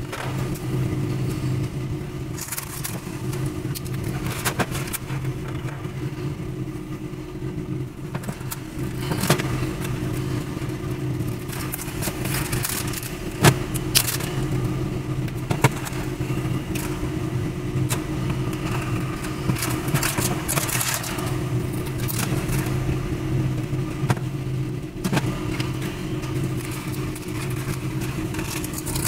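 A steady low mechanical hum throughout, with scattered clicks, taps and scrapes as a screwdriver, pliers and wires are handled against the sheet-metal housing of a ceiling light fixture.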